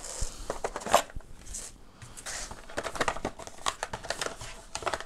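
Cardboard packaging being handled: rustling with scattered light clicks and taps as the box's inserts are lifted out.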